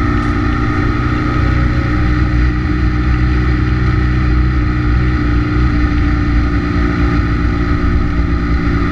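BMW F800R's parallel-twin engine running at a steady cruise, its pitch holding level, under wind noise.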